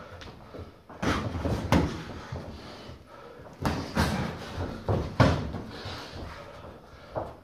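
Padded boxing gloves landing punches during sparring: a series of sharp thuds at irregular intervals, several bunched together in the middle, the loudest about five seconds in.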